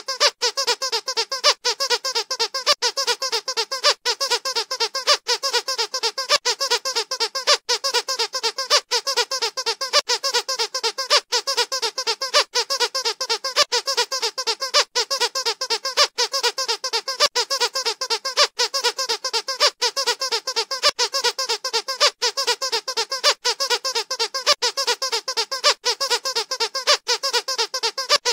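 Rubber squeaky dog toy squeezed over and over: a continuous, even run of quick squeaks, several a second.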